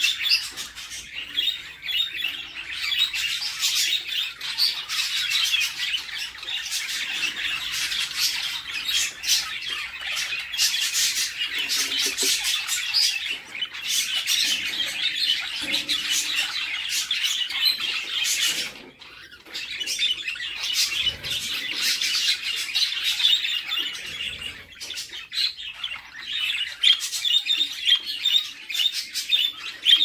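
Budgerigar chicks begging to be fed: a dense, nearly continuous stream of high chirps and squawks, with a short break a little past the middle.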